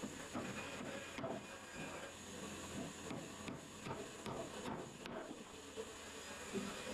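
Claw hammer tapping nails into wooden planks: a series of light, irregular strikes over a steady hiss.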